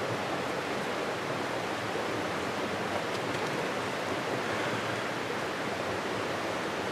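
A small creek's water running: a steady, even rush with no breaks.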